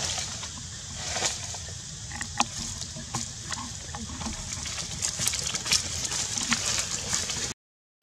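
Dry leaf litter rustling and crackling in scattered short clicks as monkeys shift and move on the ground, over a steady outdoor hiss. The sound cuts off abruptly near the end.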